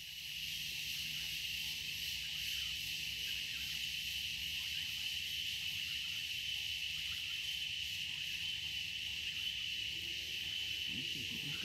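Steady, high-pitched drone of an insect chorus, with a faint low hum beneath it.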